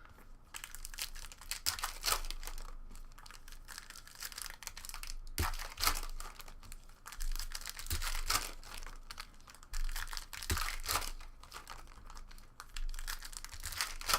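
Trading card pack wrappers being torn open and crinkled by hand, an irregular run of crackling rustles.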